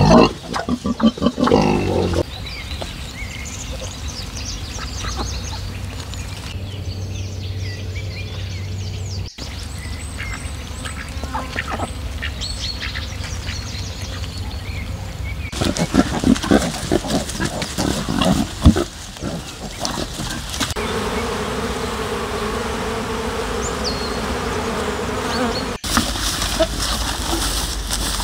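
Farmyard animal sounds from pigs and a Muscovy duck, spread over several spliced shots. The background changes abruptly about a third of the way in and again near the end.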